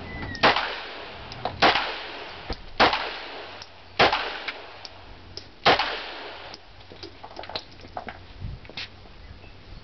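Glock 19 (Generation 3) 9mm pistol firing five shots, each a sharp crack with a brief decay, spaced about a second apart. After about six seconds only fainter clicks and pops follow.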